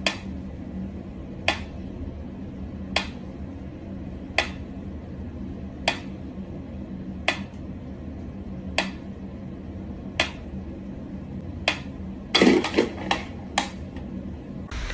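Mechanical pyramid metronome ticking slowly, one sharp tick about every second and a half, over a low steady hum. Near the end comes a short cluster of louder knocks and clatter.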